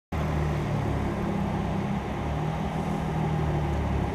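Car engine idling steadily, with a low, even rumble.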